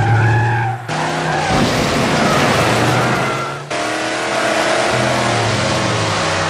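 Car engine sound effects laid over toy cars: engines running and revving, the sound switching abruptly to a different engine recording about a second in and again near four seconds.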